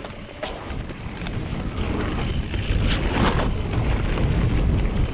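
Wind buffeting the microphone of a mountain bike rider: a low rumble that builds from about a second in as the bike picks up speed, with a few sharp clicks over it.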